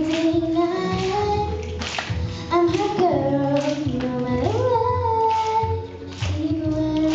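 A young girl singing solo through a microphone, holding long notes and sliding between pitches, with a clear upward slide to a higher note a little past the middle.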